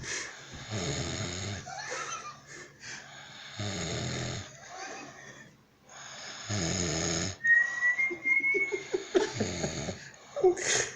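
Heavy snoring, with long snores about every three seconds. A thin, high whistle rises slightly over the later breaths.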